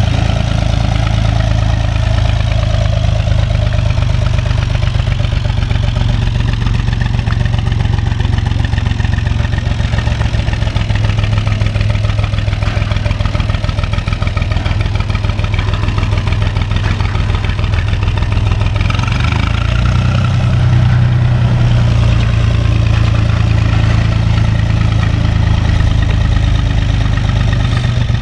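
Tractor diesel engine running steadily while driving along, close by, with a slight rise in level about twenty seconds in.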